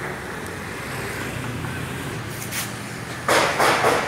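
Steady low hum of a car engine idling. About three seconds in, loud rough rustling noise breaks in and covers the hum.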